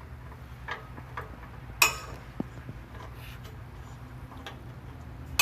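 Scattered metallic clicks and clinks of hand tools on exhaust bolts and hardware under a car, with one sharper clink about two seconds in, over a low steady hum.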